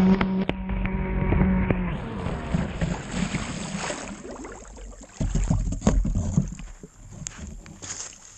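An RC boat's brushless electric motor running with a steady hum that cuts off about two seconds in. Choppy water then splashes and slaps against the drifting hull, with scattered knocks.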